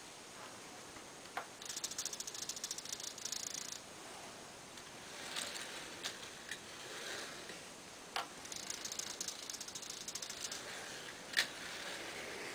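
Small hobby servo buzzing and chattering through its plastic gears in two runs of about two seconds each, swinging the model railway uncoupler arm one way and then back. A sharp click comes just before each run, with a few lighter clicks between as the model coaches are handled.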